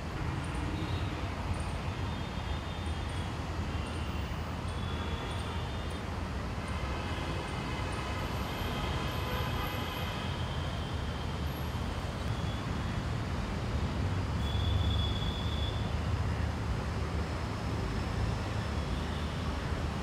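Steady low rumble of distant road traffic, with a few faint high bird chirps here and there.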